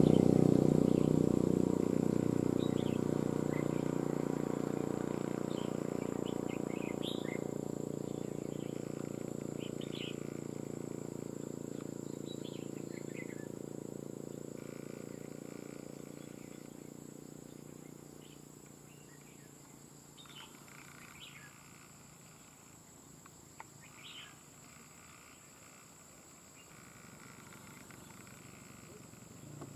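A vehicle engine running low, loudest at the start and fading away over the first eighteen seconds or so. Short chirping calls of red-whiskered bulbuls come scattered throughout, over a steady high insect drone.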